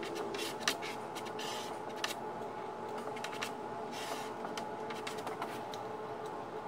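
A spreader scraping and tapping as thickened epoxy is worked into a fillet at the base of a plywood centerboard trunk, with a few sharp clicks and short scraping strokes about one and a half and four seconds in. A steady hum runs underneath.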